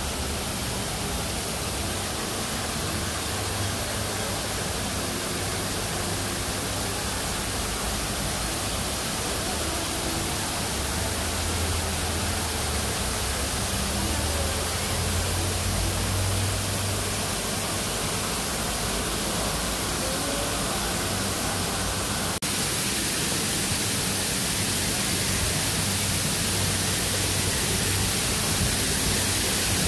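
Steady rushing hiss of falling water from a garden waterfall, with a low hum beneath it. About two-thirds of the way through the hiss changes abruptly and becomes brighter and higher.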